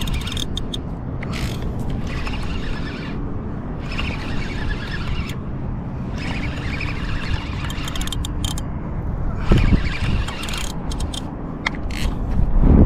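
Penn Fierce spinning reel being cranked under load against a hooked fish, its gears whirring and clicking in repeated spells. A steady low rumble runs underneath.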